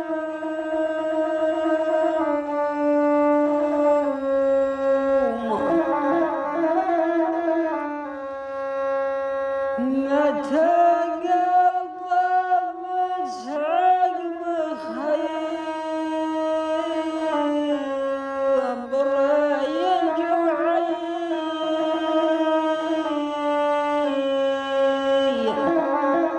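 Rababa, the Bedouin single-string bowed fiddle, playing a slow, plaintive melody of long held notes that slide and bend from one pitch to the next.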